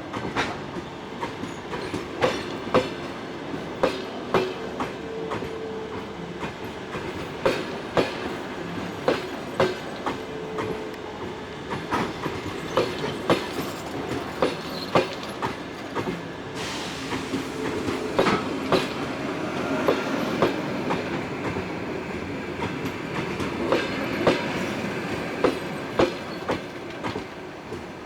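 Passenger train rolling in to its stop, its wheels clicking over the rail joints in a steady clickety-clack.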